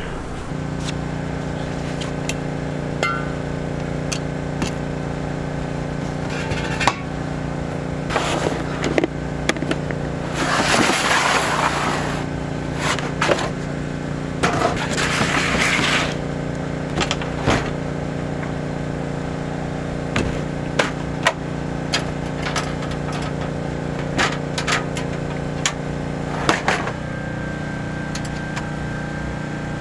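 Camp breakfast being made: metal pans, utensils and dishes clinking and knocking, with two short hissing rushes about ten and fourteen seconds in. A steady low generator hum runs underneath.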